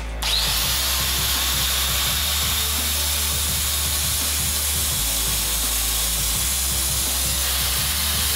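Angle grinder switched on, driving a belt-grinder attachment: a rising whine as it spins up about a quarter second in, then the motor and sanding belt running steadily at speed.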